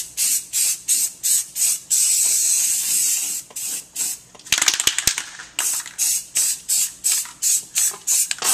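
Aerosol can of Rust-Oleum primer spraying in short rapid hisses, about four a second, with one longer steady spray about two seconds in; the can is running low on primer. A brief clicky rattle comes about halfway through.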